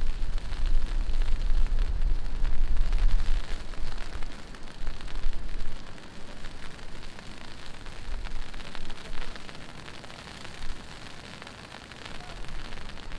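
Heavy rain falling: a dense, steady hiss of drops hitting surfaces. A low rumble is strong in the first few seconds and dies away by about the middle.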